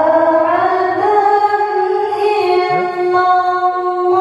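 A woman's voice reciting the Qur'an in melodic tilawah style, holding one long note that rises at the start, with a brief ornamental turn about halfway through.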